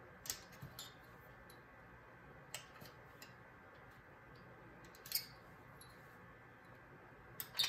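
Irregular light clicks and taps of a thin steel clay blade against polymer clay and the tile work surface as clay is trimmed, the sharpest about five seconds in and just before the end.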